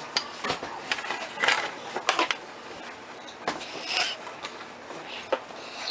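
Rubber bands being stretched over and snapped against the pegs of a plastic geoboard, with hands rubbing on the board: irregular small clicks, snaps and short scraping sounds.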